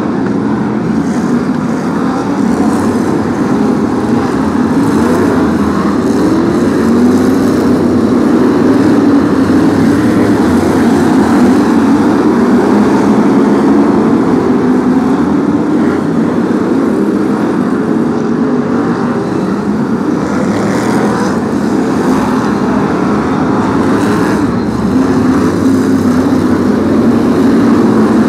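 A pack of BriSCA F1 stock cars' V8 engines running hard around the oval. They make a continuous loud drone, and its pitch keeps rising and falling as the cars lift and accelerate through the bends.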